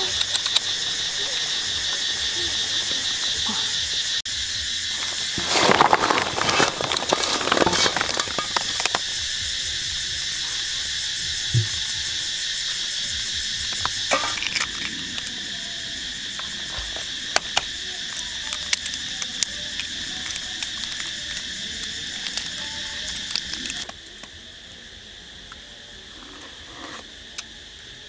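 Steady, high chorus of insects trilling, with a short cluster of rustling and knocks about six seconds in. The chorus drops abruptly quieter near the end.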